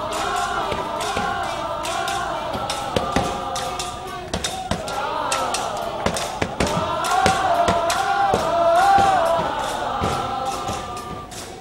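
A crowd of many voices singing or chanting a melody together, with frequent sharp hits throughout. The melody swells loudest near the end.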